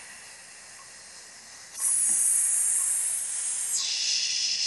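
A woman's controlled exhale through pursed lips and teeth: a quiet inhale, then about two seconds in a loud, steady hiss that drops lower in pitch a little before four seconds in, turning from a sharp 'sss' into a softer 'shh'. It is the long engaged exhale of a paced core-breathing crunch drill.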